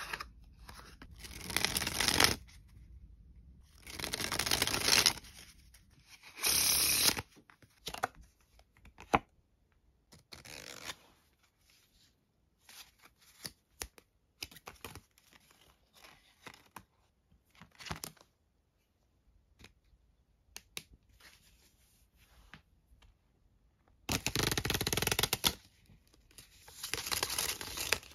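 A new deck of Good Pals Chancers paper playing cards and its tuck box handled, with small clicks and several rustling bursts. Near the end the cards are sprung from hand to hand in two longer bursts of fluttering card noise.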